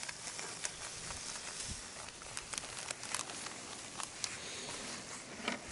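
Faint rustling of a plastic bag with scattered light clicks and taps as fish are packed into it.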